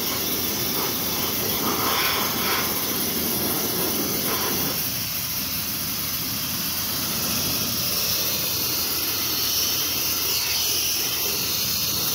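Sandblasting: compressed air and abrasive shooting from the blast nozzle against a painted steel structure, stripping the old paint, a loud steady hiss. The lower, rougher part of the noise thins about five seconds in, leaving mostly a high hiss.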